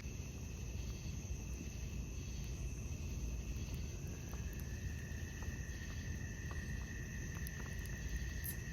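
Insects calling with steady, unbroken high tones, a further one joining about halfway through, over a low rumbling noise.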